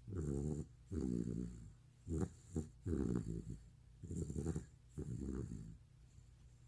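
Sleeping retriever snoring: a run of pitched snores, roughly one a second, stopping about a second before the end.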